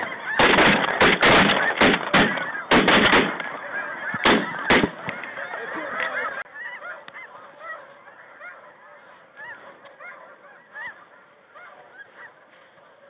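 A flock of snow geese calling continuously. Shotguns fire a rapid volley of about nine shots in the first three seconds, then two more about four and a half seconds in. After about six seconds the goose calling gets quieter and sparser.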